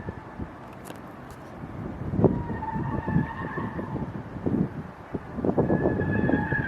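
A car's tyres squealing in two spells as it is driven hard through corners, with wind buffeting the microphone.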